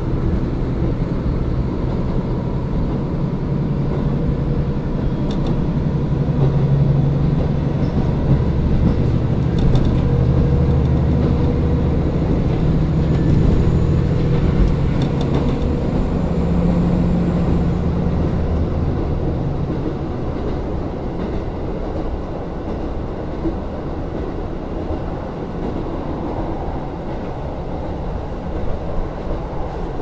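KiHa 40 diesel railcar running, heard from on board: a steady low diesel engine drone whose pitch shifts over the first twenty seconds, then eases to a slightly quieter, even run. A few light clicks of the wheels come through.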